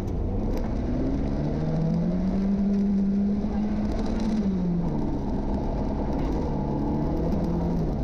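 Rally car engine and drivetrain pulling along a gravel stage, its pitch rising for a few seconds and then dropping about four and a half seconds in before running steady. The first subtle bad noises from the differential's failing pinion gear, which is starting to shear its teeth, begin here.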